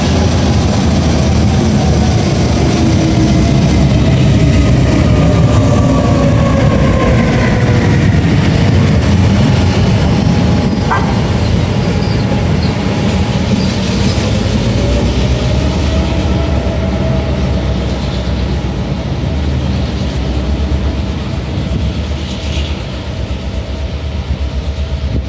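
A train running past close by: a loud, steady rumble of wheels and running gear, with whining tones that slide down in pitch over the first several seconds and climb again about two-thirds of the way through.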